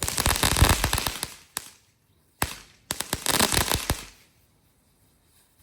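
Fireworks going off: two volleys of rapid crackling pops, each about a second and a half long, with a lone pop between them.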